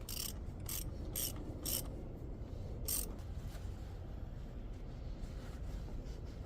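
Ratchet wrench clicking in short bursts, four about half a second apart and one more a little later, over a low steady rumble.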